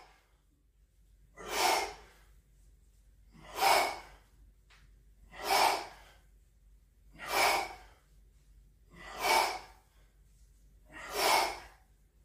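A man breathing out hard in rhythm with kettlebell swings: six sharp, breathy huffs, about one every two seconds.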